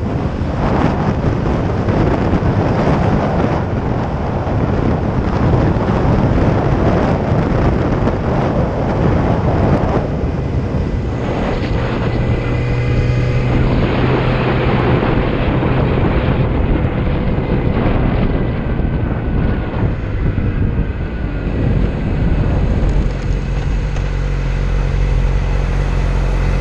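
Wind buffeting the microphone over a 2007 Yamaha R6's inline-four engine as the bike is ridden. About halfway through the wind eases and the engine note falls as the bike slows. Near the end it settles into a low, steady idle.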